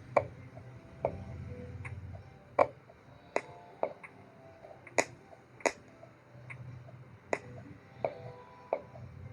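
A series of sharp, irregular clicks and knocks, about one a second, some with a short ringing tone after them, over a faint low hum.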